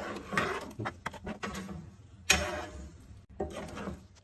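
Steel ladle stirring thick curry masala in a pan: a series of scrapes and clinks of metal against the pan, the sharpest clink a little over two seconds in, ringing briefly.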